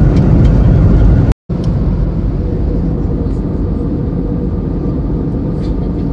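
Jet airliner cabin noise in flight: a steady low rushing noise with a faint steady hum. It cuts out for an instant about a second and a half in and returns a little quieter.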